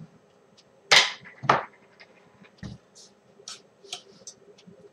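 Kitchen things being handled: two sharp knocks about a second in, half a second apart, then a duller thump and a few light ticks, as a container and utensils are set down on a wooden board and used in a steel saucepan.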